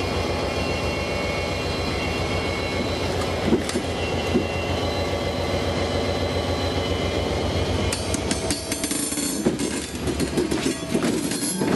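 Derailed railcar wheels moving slowly over steel rerailers, with an engine running steadily underneath. A couple of sharp metal clicks come a few seconds in, then a quick run of clanks and ticks near the end as the wheels climb the rerailers back onto the rail.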